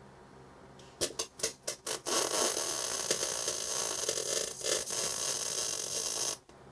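MIG welder running solid hard wire, laying a quarter-inch tack weld on steel pipe. The arc starts in a few short sputtering bursts about a second in, then runs steadily for about four seconds and cuts off suddenly.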